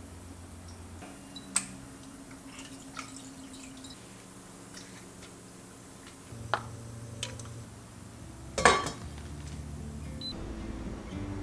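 A few sharp clicks and knocks of light household handling, like small objects set down or clinked; the loudest comes about three-quarters of the way through. A soft music bed runs underneath.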